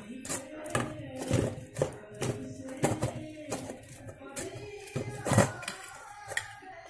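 Steel spoon scraping and tapping against a wire-mesh steel sieve in short, irregular strokes about every half second, as custard apple pulp is pressed through to free the seeds. Faint background music runs underneath.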